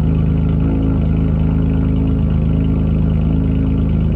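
A 4th-generation Honda Odyssey's 3.5L V6 idling steadily through a modified exhaust: muffler and resonator deleted, 2.5-inch piping after the catalytic converter, and a hollow pipe in place of the resonator.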